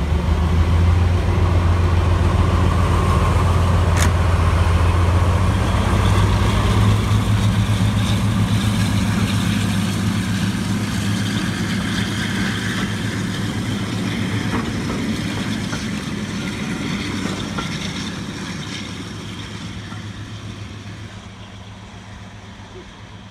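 BR Class 42 'Warship' diesel-hydraulic locomotive D832 'Onslaught' pulling away close by, its twin Maybach V12 engines under power, with a single sharp clank about four seconds in. Then the coaches' wheels run past on the rails, and the train's sound fades steadily into the distance.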